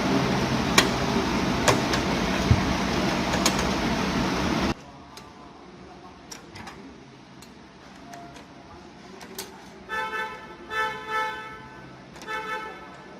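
A loud steady rushing noise with a few sharp clicks of parts being handled, cut off suddenly about five seconds in. Then come quieter small clicks and knocks, and from about ten seconds in, several short car-horn toots in quick groups.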